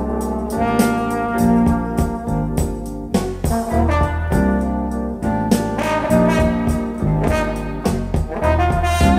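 Brass-led jazz played from a vinyl record, with a sustained horn melody over bass and frequent drum and cymbal hits.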